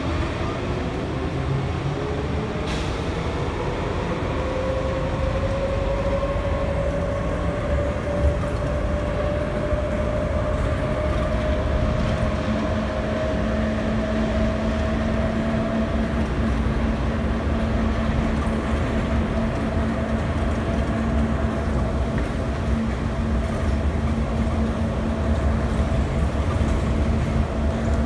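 Running noise inside an IAH Skyway automated people mover car pulling away from the station. A whine rises steadily in pitch as the car accelerates, then holds level while it cruises, over a constant rumble. A single sharp click sounds about three seconds in.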